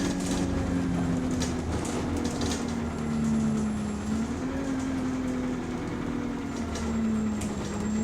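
Bus engine running, heard from inside the bus, its pitch dipping and rising as the bus drives, with scattered clicks and rattles.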